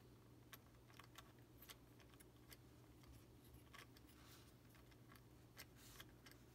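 Near silence, with faint, irregular clicks and ticks from a hand turning a 3D-printed PLA universal joint and propeller, over a low steady hum.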